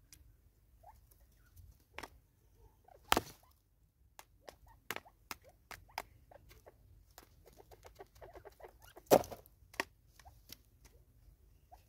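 Natal spurfowl pecking seed from a plastic bottle feeder: irregular sharp taps and clicks of beaks on the plastic, with two louder knocks about three seconds in and about nine seconds in.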